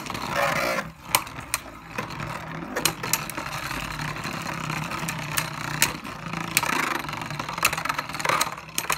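Two Beyblade Burst spinning tops whirring in a red plastic stadium, with a dozen or so sharp clacks as they collide with each other and the stadium walls.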